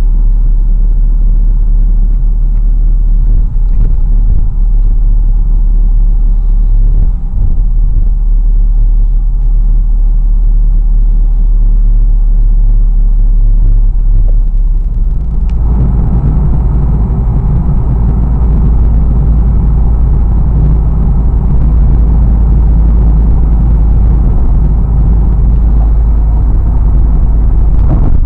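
Wind buffeting the camera's microphone on the beach, a loud, steady low rumble with no distinct tones. It grows louder and fuller about halfway through.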